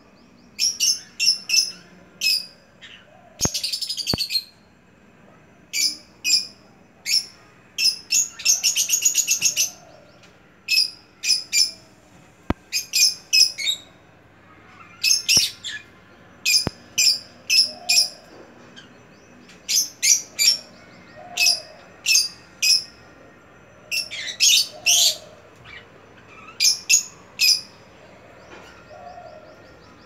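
Pet lovebirds calling: loud, shrill chirps in quick clusters of two to five, repeating every second or two, with three longer runs of rapid chattering, about a third of the way in and near the end.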